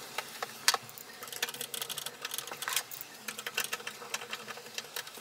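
Small irregular clicks and scrapes of screws being driven through a graphics card's rear bracket into a metal PC case.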